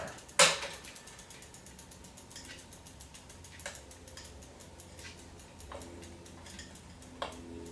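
Bicycle rear freehub ratcheting in a fast, even stream of ticks as the wheel spins on a work stand, with a loud sharp click about half a second in and softer clicks about four, six and seven seconds in.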